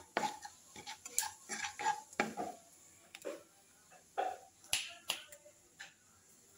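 Cumin seeds spluttering in hot oil in a non-stick kadai while a wooden spatula stirs them: irregular sharp pops and crackles.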